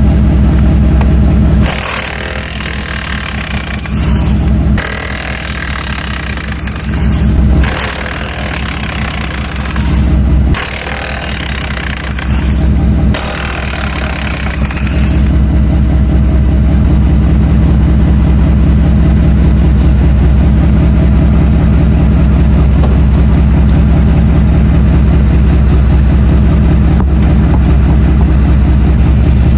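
Ford F-150 engine idling steadily. During the first half, an impact wrench runs in five or six long bursts, taking the wheel's lug nuts off.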